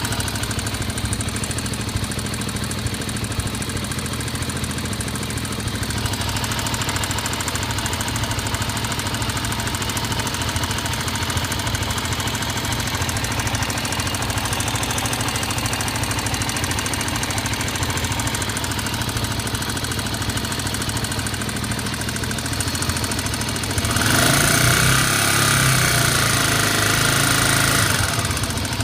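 Honda XR 250 single-cylinder four-stroke engine idling with a rapid knock from the cylinder head that comes and goes; the owner gives unadjusted valve clearance as one possible cause. The engine runs louder for about four seconds near the end.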